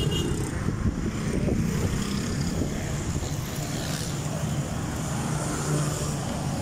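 Steady low rumble of a car engine running, mixed with street traffic noise.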